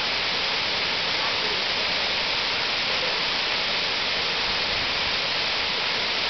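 A broad waterfall pouring into its plunge pool: a steady, unbroken rush of falling water.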